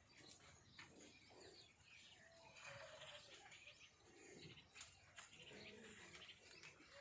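Faint farmyard ambience with birds chirping now and then.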